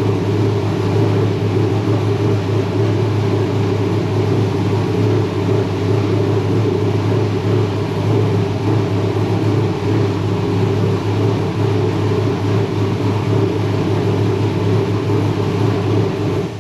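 Late model race car engine idling steadily with an even, low drone. It is being run after its cooling system was flushed, to see whether it keeps building pressure.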